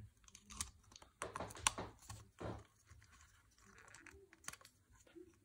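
Faint, irregular plastic clicks and taps as a clear plastic display-stand clip is pushed and fiddled onto a model starship, with the sharpest click a little under two seconds in.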